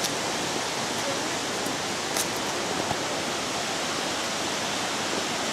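Steady rush of water tumbling over rocks, an even, unbroken noise.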